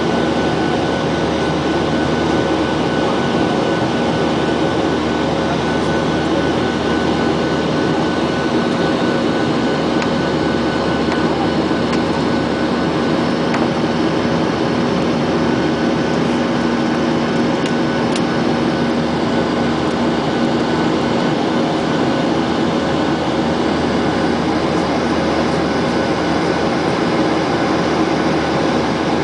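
Jet airliner's engines and cabin noise heard from inside the passenger cabin: a loud, steady rushing drone with a few steady hums, unchanging throughout.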